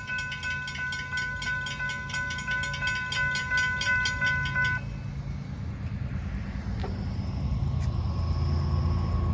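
Railroad grade-crossing warning bell ringing, about three strikes a second over a steady tone, while the crossing is active; it cuts off about five seconds in. A low steady rumble runs underneath and carries on after it.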